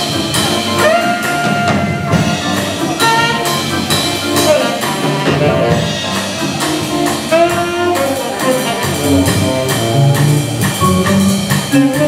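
Live jazz on tenor saxophone, organ and drum kit. The saxophone leads with quick runs and held notes over the organ and the drummer's cymbals.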